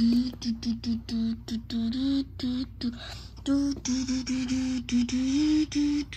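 A voice humming short, evenly spaced syllables on a nearly steady note, a rhythmic galloping beat made by mouth to go with a toy horse being played over a jump. The note steps up a little after the middle.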